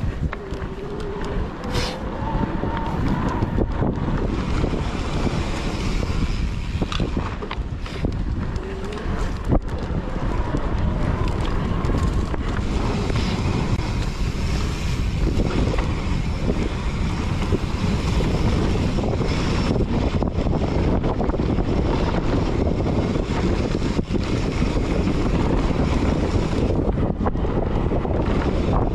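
Wind rushing over the camera microphone as a mountain bike rolls fast down a dirt singletrack, with steady tyre rumble and occasional sharp knocks and rattles from the bike over bumps.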